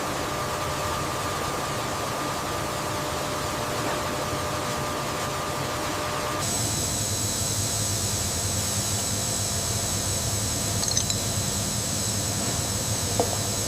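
Steady factory machinery noise, a hum and hiss with faint whining tones. About six and a half seconds in it changes abruptly to a different machine sound, with a lower hum and a high whine.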